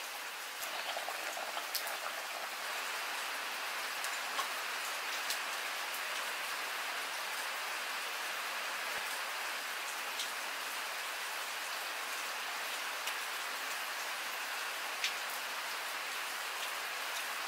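Steady rain falling, with a few sharp ticks scattered through it.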